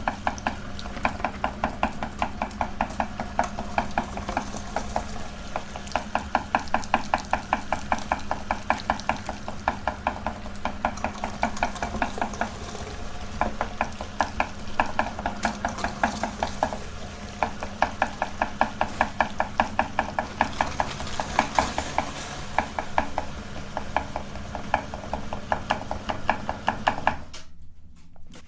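Meat grinder running with a steady motor hum as it grinds jelly candies, with rapid rhythmic clicking from the turning auger, about five a second. It stops abruptly near the end.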